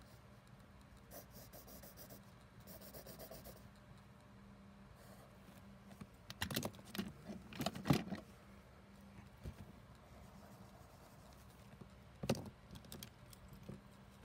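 Faint scratching of a pen drawing on paper, then a cluster of sharp clicks and knocks about six to eight seconds in and another near the end, as drawing tools are put down and picked up. A low steady hum runs underneath.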